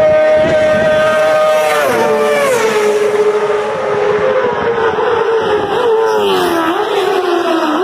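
Racing sidecar outfit's engine running flat out at high revs; about two seconds in its pitch drops sharply as it passes, then it runs on at a lower pitch with small rises and falls, and the pitch starts to fall again near the end.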